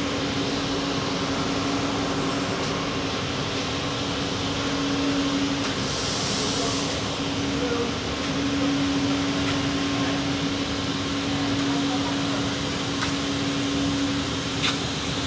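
Packaging-line machinery running with a steady hum and one constant tone. A short hiss comes about six seconds in, and a sharp click comes near the end.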